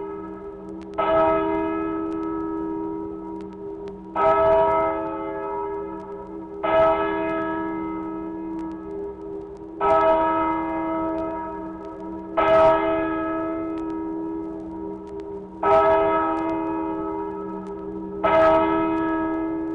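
Church bells played from a vinyl sound-effects record, struck slowly: seven strokes about every three seconds, each ringing on and overlapping the next.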